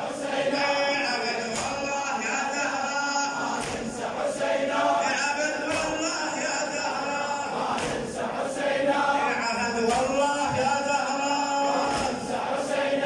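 Shia Muharram latmiya: men chanting a lament together, led by a male eulogist (radood), with sharp chest-beating strikes about every two seconds.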